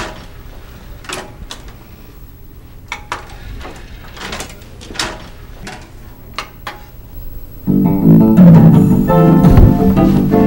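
A few faint clicks and knocks, then about three-quarters of the way in, music with guitar and bass starts abruptly and loudly from the television as a video begins playing.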